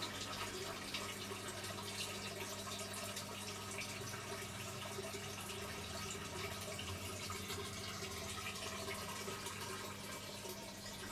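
Water trickling and splashing steadily through a hydroponic growing system's pipes, over a steady low hum.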